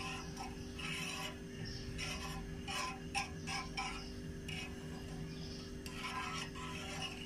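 Metal spoon stirring oil in a frying pan, scraping and lightly clinking against the pan in short, irregular strokes, over a steady low hum.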